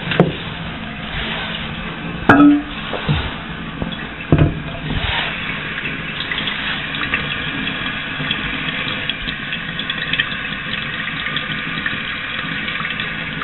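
Toilet tank filling with water: a steady hiss of running water with a fine trickling crackle. A few sharp knocks of handling come in the first few seconds.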